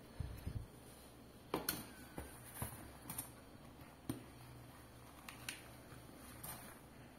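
Faint handling noises: a few dull thumps at the start, then scattered sharp clicks and taps as hands work the buttons of a portable air compressor and fit its hose's inflation needle into a football's valve.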